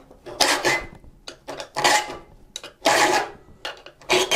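Triangular saw file rasping across the steel teeth of a Disston D8 4-TPI rip saw held in a wooden saw vise, sharpening every other tooth. Four file strokes, about one every second and a quarter, with light clicks between them.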